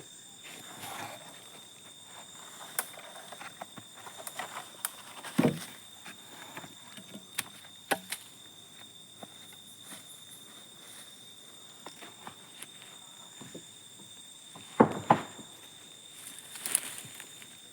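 Scattered knocks and clicks, the loudest about five seconds in and again near the end, over a faint steady high-pitched whine; no chainsaw is running.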